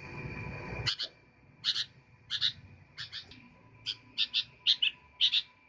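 Sooty-headed bulbul (kutilang) singing: a run of short high notes, many of them doubled, repeated roughly every half second and getting quicker toward the end. A low rumble fills the first second before the song starts.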